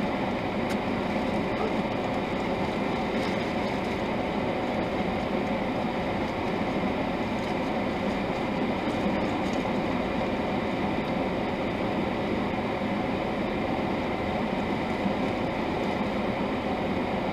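Steady hum and hiss inside a car cabin, from the car's running engine and ventilation fan, with no change throughout.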